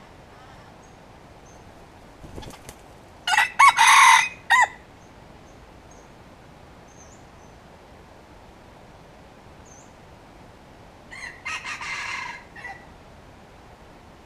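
Red junglefowl rooster crowing twice: a loud crow about three seconds in, just after a brief flutter of wing-beats, and a quieter crow about eleven seconds in.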